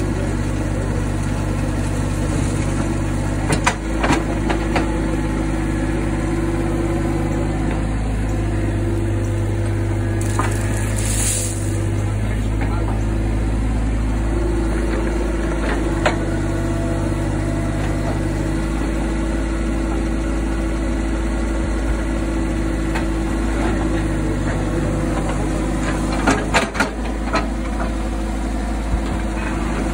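Mini excavator's diesel engine running steadily, its note shifting as the arm and bucket work. A few sharp knocks from the digging stand out, clustered about four seconds in and again near the end, with a short hiss around the middle.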